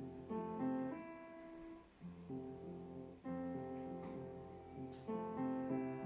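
Instrumental background music, its chords changing every second or so.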